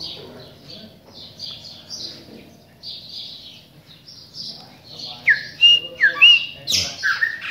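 Chopi blackbirds calling: a steady run of quick high chirps, then from about five seconds in louder clear whistles that slide down in pitch.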